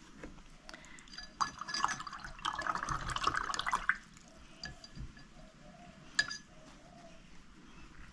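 Paintbrush being rinsed in a jar of water, with a stretch of swishing from about two to four seconds in, scattered light clinks, and one sharper tap a little after six seconds.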